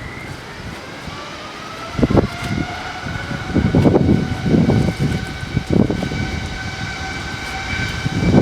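Airbus A330-900neo's Rolls-Royce Trent 7000 jet engines whining, one tone rising slowly in pitch as the engines spool up. Gusts of wind buffet the microphone again and again.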